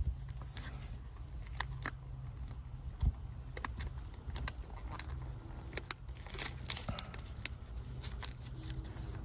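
Faint small clicks and rustles of fingers working a flex ribbon cable into the connector on a circuit board, a few sharp ticks scattered through, over a steady low hum.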